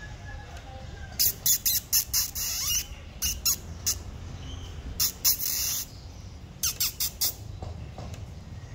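A cat hissing and spitting: loud, sharp hissing bursts in four clusters between about one and seven and a half seconds in, some very short and a few held for half a second or so.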